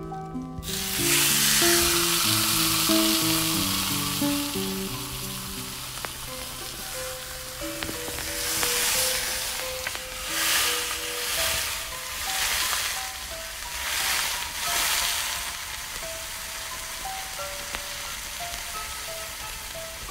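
Butter sizzling on a small hot iron griddle: it starts loud as the butter hits the pan about a second in, then fades. The sizzle swells again about four times as a piece of food is pressed into the butter with a spatula.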